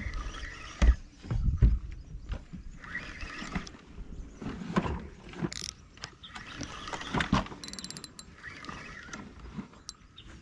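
Spinning reel being cranked to retrieve a lure, its gears clicking and whirring irregularly, with a few dull knocks in the first two seconds.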